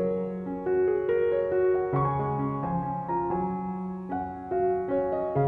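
Slow solo piano music: a melody over held bass notes that change every two or three seconds.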